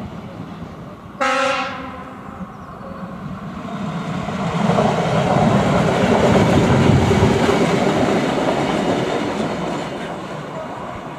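Class 810 diesel railcar sounding one short horn blast about a second in. Its diesel engine and wheels on the rails then build up as it passes close by, loudest midway, and fade as it draws away.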